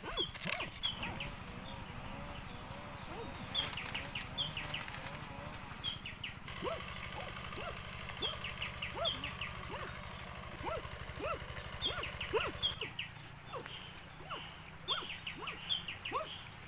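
Forest ambience: many short chirping calls, likely birds, scattered throughout over a steady high-pitched hiss, with a low hum in the middle.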